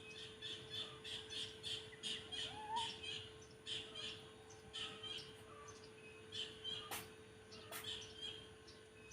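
Birds chirping in quick, irregular series of short high calls, over a steady faint hum.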